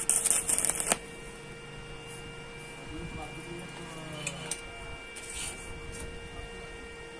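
Stick-welding electrode striking an arc on a steel-tube frame and crackling for about a second as it lays a tack weld, then cutting off, leaving a steady electrical hum.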